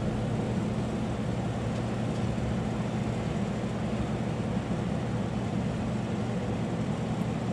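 A steady mechanical hum holding one constant pitch.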